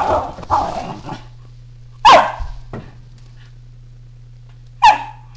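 Schnauzer barking excitedly: a quick run of barks in the first second, then single sharp barks about two seconds in and again near the end.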